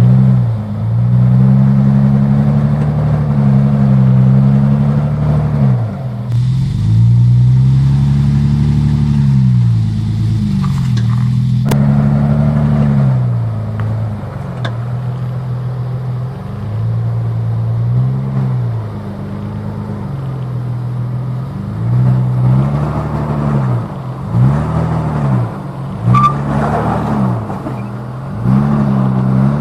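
Nissan Patrol's TB48 4.8-litre straight-six petrol engine revving up and down again and again under load while rock crawling, the revs coming in quicker, shorter blips in the last part. A sharp knock sounds once about twelve seconds in.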